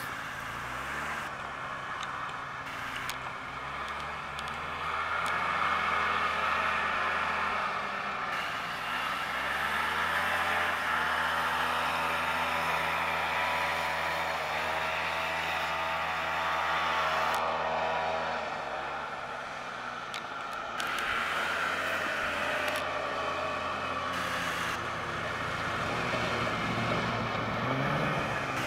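Snowmobile engines running as the sleds ride across the snow. The engine whine rises and falls in pitch as they speed up and slow down, and swells through the middle.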